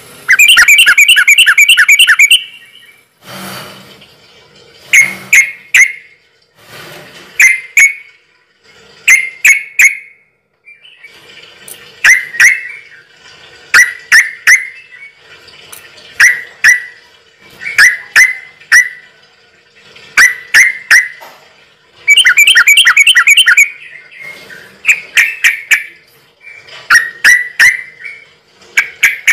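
A bird calling loudly and repeatedly: short groups of three or four sharp chirps about every two seconds, with longer rapid chirping trills at the start and again about 22 seconds in.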